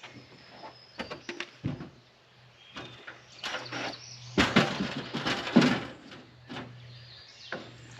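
Wooden truss boards knocking and scraping as they are handled and set in place: a few sharp knocks about a second in, then a louder stretch of clatter and scraping in the middle.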